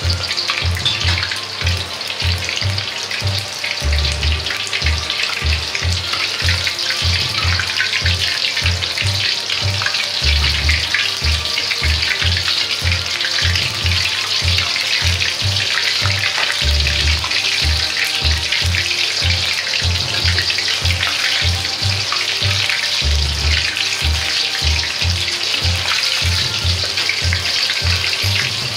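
Food frying in hot oil in a wok: a steady, dense crackling sizzle. Background music with a steady low beat runs under it.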